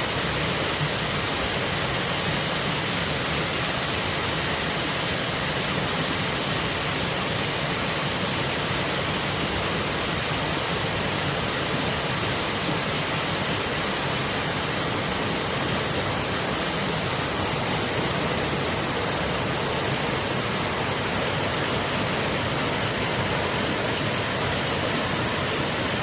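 River water rushing, a steady full hiss with no breaks.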